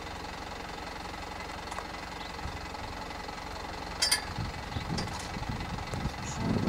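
Vehicle engine idling steadily, with a single sharp click about four seconds in and a few soft low thuds after it.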